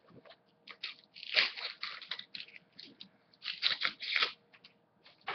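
A Panini Euro 2012 sticker packet being torn open by hand, its foil wrapper ripping and crinkling in two main bursts, about a second in and again about three and a half seconds in.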